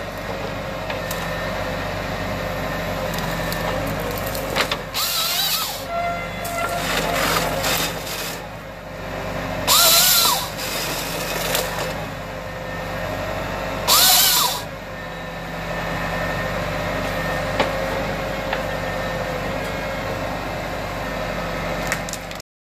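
Valtra tractor's diesel engine running steadily under hydraulic load while the Nisula 425C harvester head feeds a pine stem and makes three short chain-saw cross-cuts, each a loud burst under a second long, about 5, 10 and 14 seconds in.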